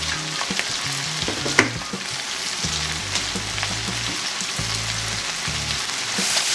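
Frozen mixed vegetables frying with beef and corn in a pan: a steady sizzle as the water from the frozen vegetables cooks off, with occasional clicks and scrapes of stirring. The sizzle grows louder near the end. Background music with low bass notes plays underneath.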